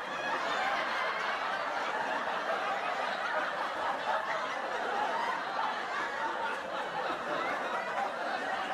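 Audience laughter: many people chuckling and laughing together at a steady level, like a sitcom laugh track.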